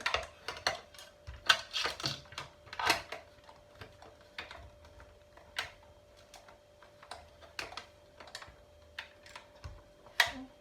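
Sharp plastic and metal clicks and knocks from the removable plates of a 3-in-1 sandwich maker being worked in and out with the release button, many in quick succession over the first three seconds, then fewer and more spaced.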